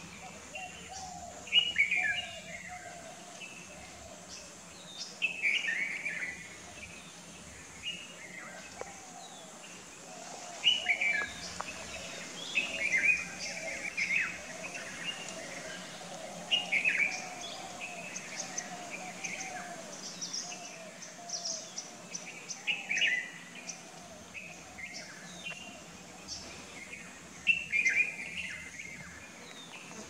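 Red-vented bulbul calling in short, bright phrases with falling notes, repeated every few seconds, over fainter chirping from other birds and a steady high hiss.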